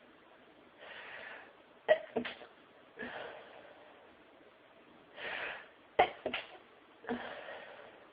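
A woman sneezing twice in a sneezing fit. Each sneeze is a sudden burst with a quick follow-up, led by a drawn-in breath and followed by a breath out.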